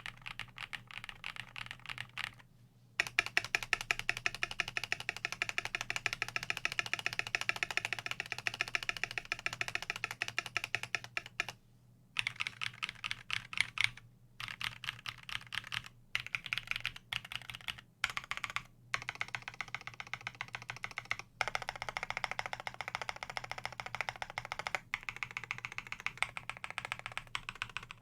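Fast continuous typing on a KBD75 v3.1 custom mechanical keyboard with a brass plate, lubed Everglide Dark Jade switches and PBT keycaps: a rapid patter of keystrokes, stopping briefly a few times.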